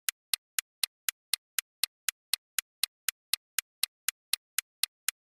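Countdown timer sound effect ticking steadily, about four sharp ticks a second, stopping right at the end.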